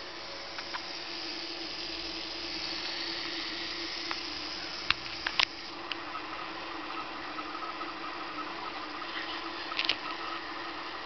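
Small DC gear motors running with a steady whirring hum, a higher whine joining about halfway through, and a few sharp clicks around five seconds in and again near the end.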